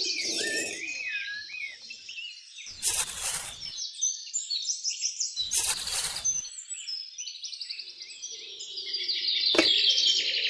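Small birds chirping and trilling, with two hissing bursts of noise about a second long, around three and six seconds in, and a single sharp click near the end.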